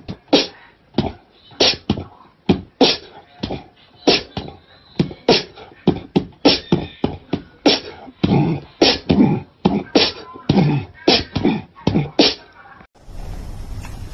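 A person's voice making rapid, rhythmic percussive mouth sounds like beatboxing, about two sharp strokes a second. About a second before the end it cuts off abruptly and gives way to a steady low hum.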